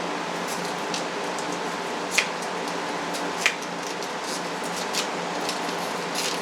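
A cheap handheld hair dryer running steadily on a tripod, blowing hot air onto taped poster paper. A few sharp crackles from the heated tape and paper cut through it, the two loudest about two and three and a half seconds in.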